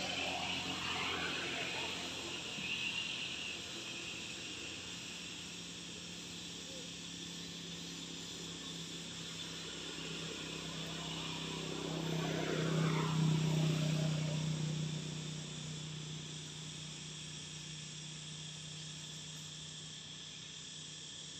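Steady high drone of insects in the forest, over a low steady hum. A louder sound with sliding pitch swells up briefly at the start and again about twelve seconds in.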